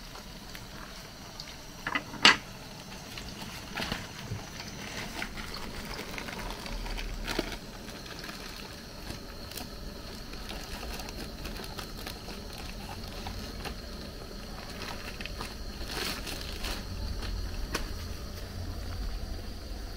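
Plantain slices frying in a pan of hot oil, a steady sizzle, with one sharp knock about two seconds in and scattered lighter clicks.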